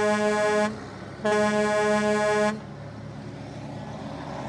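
Truck horn honking twice, two long blasts of one steady pitch, then a low steady rumble.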